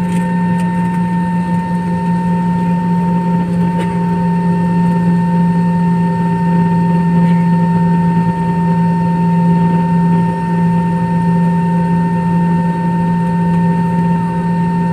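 Jet airliner cabin noise on the ground: the engines running at low power, with a steady deep hum and a constant higher whine that does not change in pitch or level.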